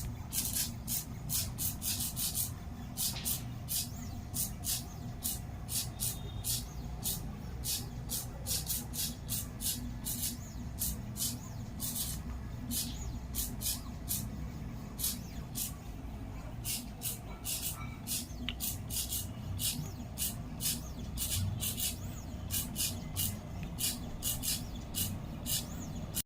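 Home-built CNC pen plotter drawing: its NEMA 17 stepper motors hum steadily while the pen makes short, high-pitched scratching strokes across the paper, one to three a second at irregular intervals.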